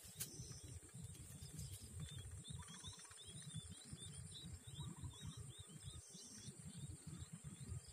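Outdoor ambience: insects buzzing steadily, high-pitched, with a bird giving a quick run of small chirps from about two to five seconds in, over a low, uneven rumble.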